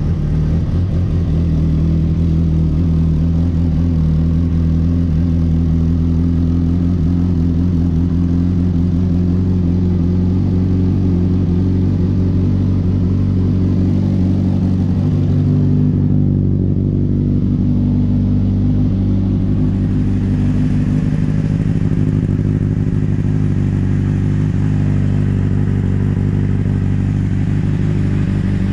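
A 2006 Honda CBR600RR's inline-four engine idling steadily on fresh oil just after an oil and filter change.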